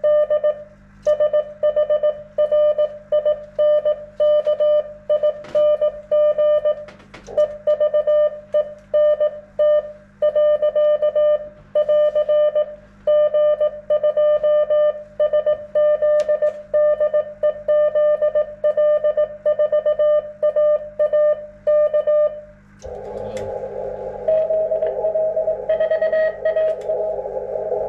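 Morse code keyed as a single steady beep in a fast, irregular dot-dash rhythm through an HF radio transceiver. About 23 seconds in, the beeping stops and the receiver's filtered band hiss takes over, with a faint Morse signal in it.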